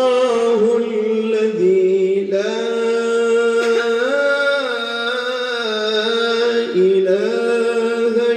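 A male qari reciting the Quran in melodic tilawah style, holding long, ornamented notes that step up and down in pitch, sung into a handheld microphone.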